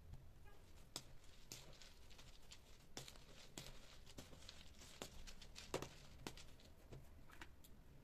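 Metal spoon scraping and stirring white powder in a plastic tub: faint, irregular scrapes and light clicks, the sharpest one a little past the middle.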